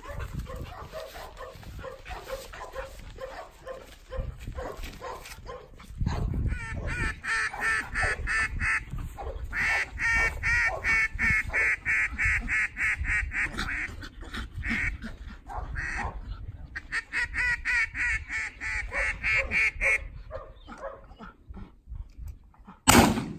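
Three long runs of rapid duck quacks, each run several seconds long. Near the end comes a single gunshot, the loudest sound here.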